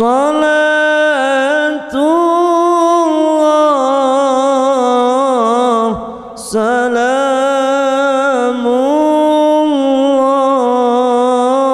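A male qari reciting the Qur'an into a microphone in melodic tilawah style, holding long notes with wavering ornaments, with brief pauses about two and six seconds in.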